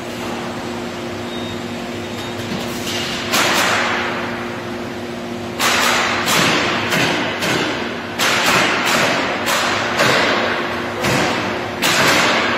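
Robotic panel-building line: a steady machine hum with sharp thuds from the industrial robot arms' tooling. There is one thud about three seconds in, then about a dozen at roughly half-second intervals, each dying away quickly.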